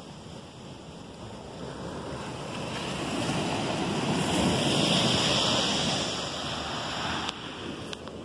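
Sea surf on a beach: a wave surges over a few seconds, loudest about halfway through, then drops away.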